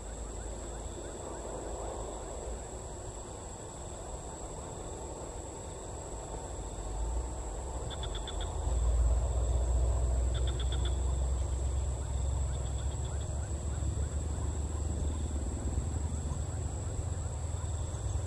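Rural outdoor ambience: a steady high-pitched insect drone with a few short trilling calls in the middle, over a low rumble that swells about seven seconds in and becomes the loudest sound.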